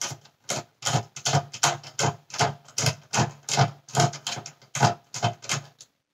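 Hand screwdriver turning a screw in the centre of a plastic vacuum-cleaner cyclone unit, a steady run of short clicks about three to four a second that stops near the end.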